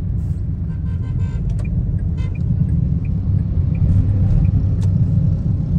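Low, steady rumble of car and road noise while driving slowly through busy street traffic.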